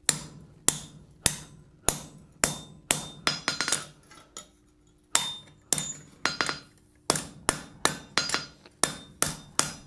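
Hand hammer striking a red-hot steel bar on an anvil, a run of sharp blows about two a second, each ringing briefly, with a pause of about a second near the middle. The bar is being dressed around its drifted square centre hole, drawing a small point on each side.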